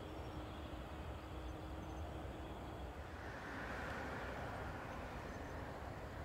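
Boeing 747-8F's GEnx-2B67 turbofan engines being started, heard from a distance as a steady low rumble. A broad rushing hiss swells about three seconds in and then eases off.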